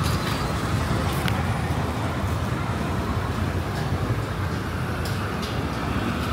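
Steady city road traffic noise, vehicles passing with a continuous low hum, and a few faint clicks.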